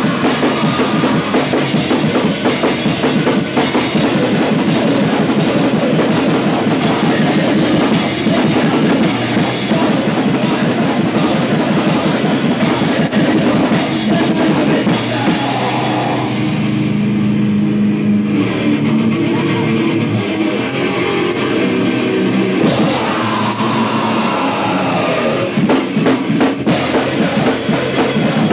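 Thrash/punk band playing live, with drum kit, distorted guitar and bass loud and dense through a camcorder microphone in the crowd. About sixteen seconds in, the band thins out for a few seconds to a lower riff, then the full band comes back in.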